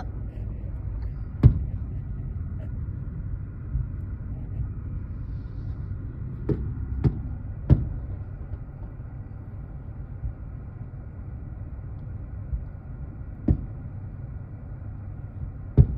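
Fireworks going off: about six sharp bangs, three of them close together in the middle, over a steady low rumble.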